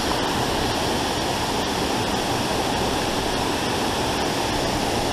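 Waterfall rushing: a loud, steady roar of falling water.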